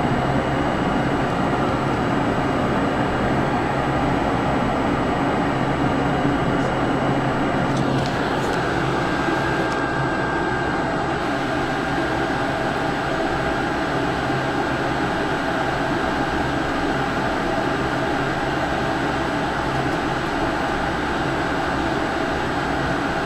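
Cabin drone of a Pilatus PC-12's single Pratt & Whitney PT6A turboprop engine running steadily, heard from inside the aircraft with a low propeller hum. About eight seconds in, a faint high-pitched whine comes in and stays.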